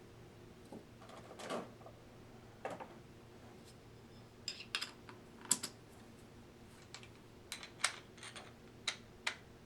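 Scattered light clicks and taps at irregular intervals, the sound of coffee beans and the parts of a Porlex Mini hand coffee grinder being handled as it is filled and put together.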